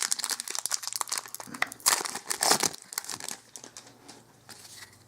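A Magic: The Gathering booster pack's foil wrapper being torn open and crinkled by hand. The crackling is busiest through the first three seconds, then dies down to faint rustling.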